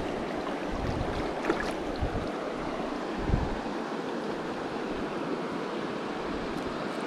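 Shallow rocky mountain stream: a steady rush of water running over stones, with a couple of brief low thumps on the microphone.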